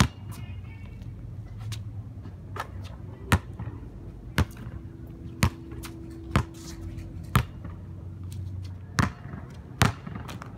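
Basketball being dribbled and bounced on a hard outdoor court: a run of sharp bounces, roughly one a second.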